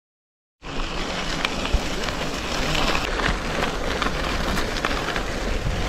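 Gravel bike rolling along a sandy gravel road, starting about half a second in: a dense, steady crunch and crackle of tyres on sand and grit, mixed with wind noise on the bike-mounted camera's microphone.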